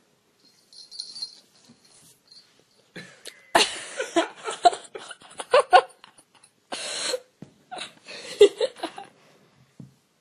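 A person laughing in breathy bursts, with a few sharp knocks as a cat tumbles against its plastic toys.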